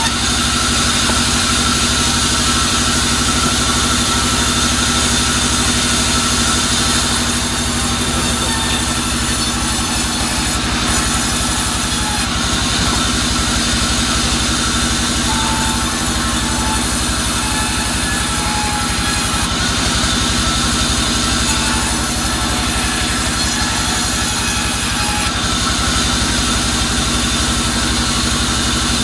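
Bandsaw running steadily while its blade rips soft albasia (sengon) wood. A high hiss swells and falls back several times as the blade enters and leaves each cut.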